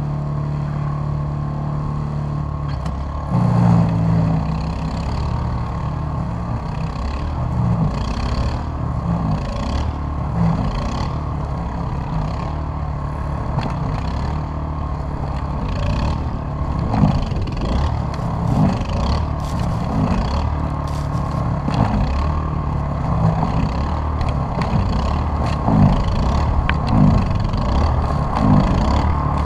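Toro Power Clear 518 ZR single-stage snowblower's small engine running. It gets louder about three seconds in, then rises and falls unevenly as the blower works through deep, thick snow taller than itself.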